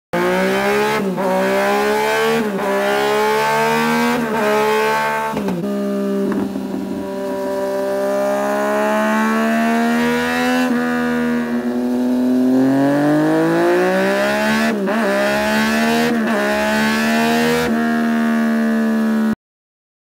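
Yamaha MT-09's inline-three engine with an Austin Racing exhaust, run hard on a dyno. The engine note climbs and drops sharply at each gear change: several quick shifts, a longer pull in the middle, then more shifts. It cuts off suddenly near the end.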